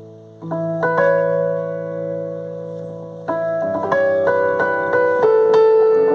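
Piano played by hand at a slow pace: a held chord rings, new notes are struck about half a second in, and a run of melody notes follows from about three seconds in, each note ringing on over the others.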